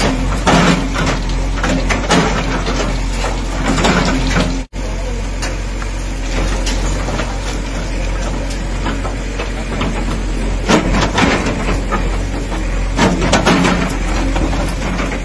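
A JCB backhoe loader's diesel engine running under load while its bucket strikes and breaks up a concrete structure, with repeated knocks and crashes of concrete and brick.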